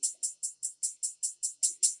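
Drum-machine loop of closed hi-hats from a Maschine 808 kit ticking evenly, about five or six a second.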